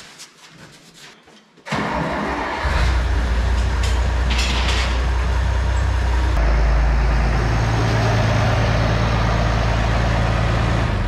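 International 686 tractor's diesel engine cranked and started about two seconds in, then running steadily. About six seconds in its note changes as the tractor is driven off.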